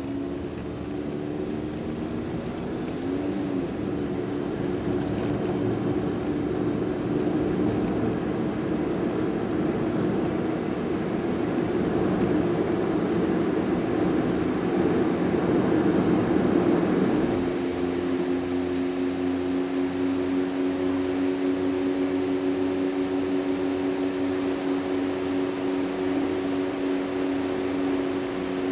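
Road noise inside a moving car's cabin: a steady tyre roar from the road surface with a steady low hum underneath. The roar eases somewhat about two thirds of the way through.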